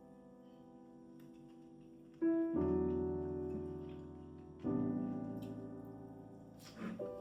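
Background piano music: slow chords struck about two and a half seconds apart, each left to ring and fade. A brief soft noise comes near the end.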